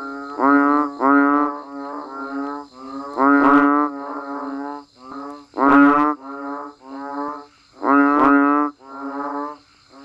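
A chorus of banded bullfrogs (Asian painted frogs, อึ่งอ่าง) calling: repeated low, drawn-out, moo-like calls, about half a second to a second each. A loud call comes every two seconds or so, with fainter calls from other frogs answering in between. A faint steady high whine runs underneath.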